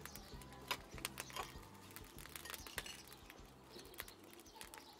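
Scattered light clicks and taps from a knife slicing red chilli over a bowl and from bowls being handled, over faint background music that fades out about a second and a half in.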